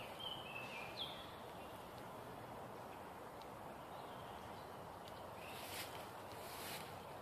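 Faint woodland ambience: a few short bird chirps in the first second and another faint one a few seconds later, over a steady low background hiss, with a couple of brief rustles in dry leaves near the end.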